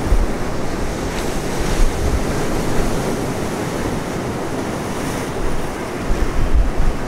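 Surf washing over a rocky shoreline, with wind buffeting the microphone in low rumbling gusts at the start and again near the end.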